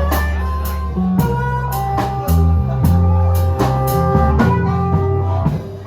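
Live band playing: electric bass stepping through notes under a drum kit with regular cymbal strikes, and a lead instrument holding long notes over them.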